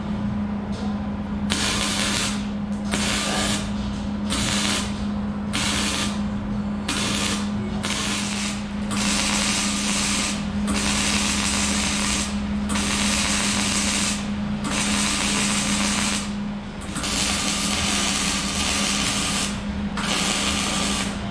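Electric arc welding on steel, a crackling hiss that starts and stops: a run of short welds about a second apart, then longer welds of one to two and a half seconds each. A steady low hum runs underneath.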